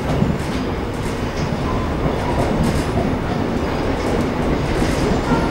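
Seoul Subway Line 1 train running, heard from inside the passenger car: a steady rumble of wheels on rail with a few faint clicks.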